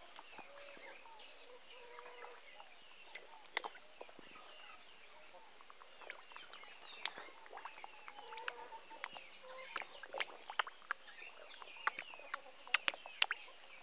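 Fish taking floating feed pellets at the water's surface: scattered sharp pops and small splashes, several close together near the end. Birds chirp steadily behind them.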